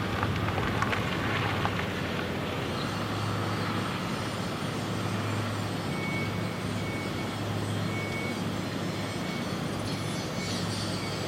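Steady low engine hum of heavy machinery running, with a few clicks early on and faint, evenly repeated beeping about once a second from about halfway through.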